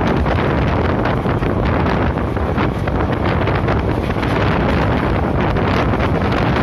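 Wind buffeting a phone's microphone held out of the window of a fast-moving passenger train, over the steady rumble of the coach running on the track. The noise is loud and even throughout, with no distinct knocks or horn.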